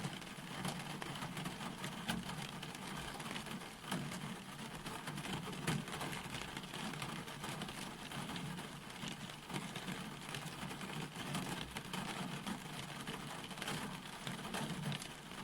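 Steady rain falling: a constant hiss dotted with many small, sharp drop ticks.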